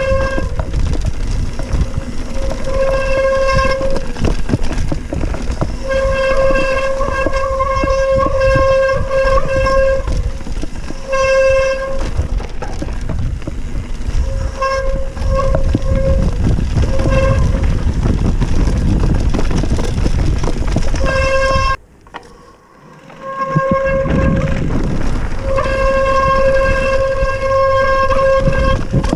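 Hardtail mountain bike's disc brakes howling in one steady pitch, on and off in stretches of one to four seconds as they are applied, over the rumble and rattle of the tyres on a dry, rocky dirt trail and wind on the microphone. Everything drops out for about a second and a half, about 22 seconds in.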